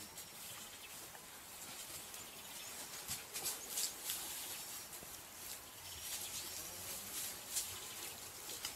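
Faint outdoor bush ambience with scattered soft, high ticks and clicks that come in clusters a few seconds in and again near the end.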